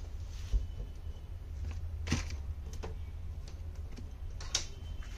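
A few light knocks and taps of handling while protective padding is fitted around an opened LCD TV, over a steady low hum.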